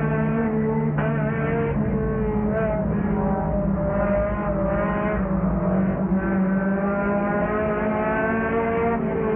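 Race car engine heard from inside the car, running steadily under load, its pitch rising and dipping a little as the throttle is worked.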